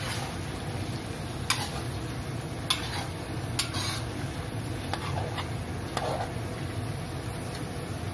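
Prawns frying in oil in a wok while a metal spatula stirs them, scraping and knocking against the wok several times, over a steady low hum.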